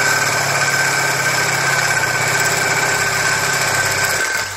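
Cordless drill spinning an abrasive disc against the edge of a 1/8-inch steel cap held in a vise, grinding the edge clean. A steady high motor whine under a loud grinding hiss that eases slightly near the end.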